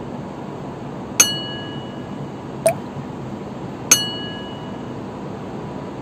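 Two identical bright bell dings about two and a half seconds apart, each ringing briefly, with a short click between them: the bell-and-click sound effect of a subscribe-button animation. Under them is a steady hiss of wind and distant city traffic.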